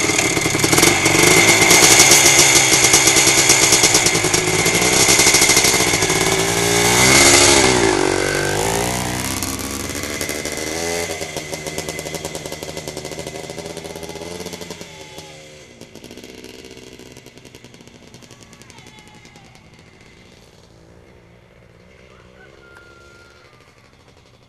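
Husqvarna 250 CR two-stroke motocross engine running loud at close range, revving up and down as the bike pulls away and goes up through the gears. Its note fades steadily as the bike rides off into the distance, faint over the last few seconds.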